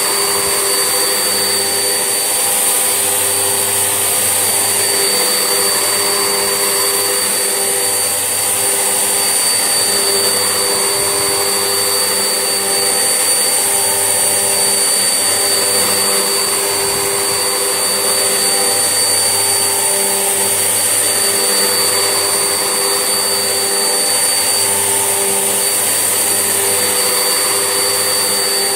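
Vax Essentials vacuum cleaner running steadily, its motor giving a continuous whirring hum with a high whine over it.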